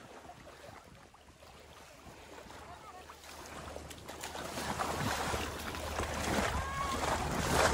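Water splashing and lapping around an inflatable boat as it is paddled, faint at first and growing louder from about three seconds in.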